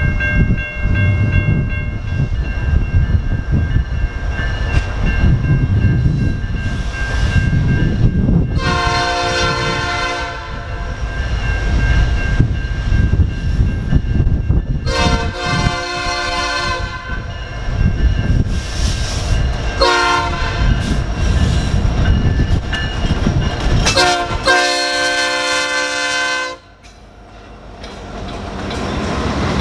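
Canadian National diesel freight locomotives, led by an EMD SD70M-2, rumbling past while the lead unit's multi-chime air horn sounds two long blasts, a short one and a final long one: the standard grade-crossing signal. After the last blast the loudness drops briefly, then builds again as the loaded cars roll by with a clickety-clack.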